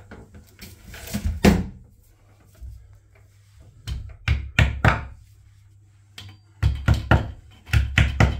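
Hammer tapping red plastic wall plugs into drilled holes in a tiled wall: groups of three or four quick, sharp knocks, a few seconds apart.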